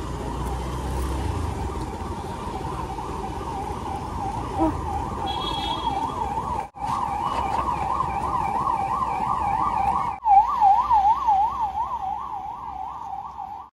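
A siren in a fast rising-and-falling yelp, about three to four sweeps a second, over low street noise. It cuts out briefly twice and is loudest just after the second break.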